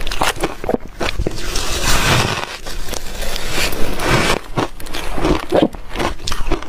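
Ice cubes being bitten and chewed close to the microphone: dense, irregular crunching and cracking.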